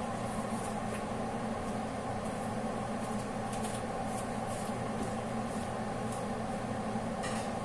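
Steady hum of a motor-driven fan, with constant low tones and a few faint ticks.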